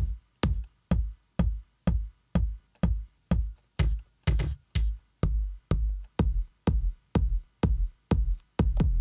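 Layered kick drums from NI Maschine's step sequencer looping on every beat at 125 BPM, about two hits a second: a deep sub kick with a punchier, sharper kick on top that is a bit too punchy. The hits ring longer around the middle and come closer together near the end.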